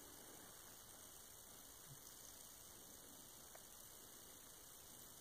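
Near silence: only a faint steady hiss and hum.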